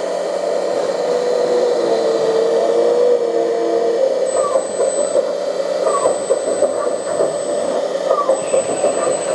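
LESU 1/14 374F RC hydraulic excavator's smoke unit with its blower fan running, giving a steady whirring drone. A wavering tone rides on it for the first few seconds, and from about four seconds in short high chirps repeat about every two seconds.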